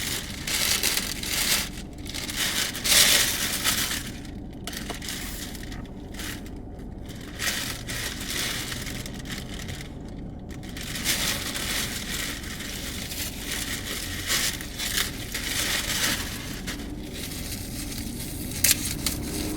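Rustling and crinkling handling noise close to the microphone, coming in irregular bursts, loudest in the first few seconds.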